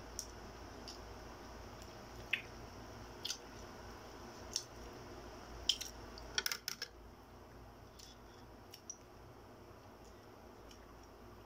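Quiet eating and food-handling sounds at a table: scattered small clicks and taps, with a quick cluster of them about six and a half seconds in, over a low steady hum.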